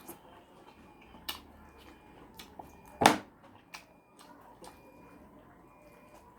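Eating sounds: scattered small clicks, with one much louder clack about three seconds in.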